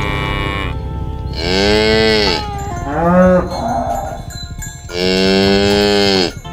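Cows mooing: a call that ends within the first second, then three more moos, one short and one long near the end, each rising and then falling in pitch.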